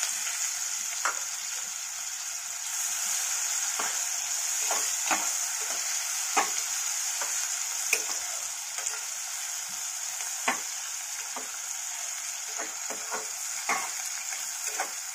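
Chopped onion sizzling in hot oil and ghee in a pressure cooker as it is stirred and sautéed: a steady hiss with scattered sharp clicks from the stirring.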